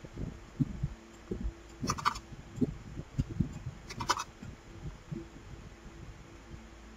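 Quiet clicking of a computer keyboard and mouse during code editing: soft low knocks throughout, with two sharper clicks about two and four seconds in, over a faint steady hum.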